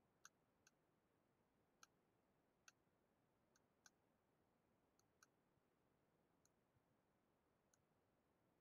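Faint computer mouse clicks, about a dozen spread irregularly, some in quick pairs, over near silence, as cable links are placed between devices in a network simulator.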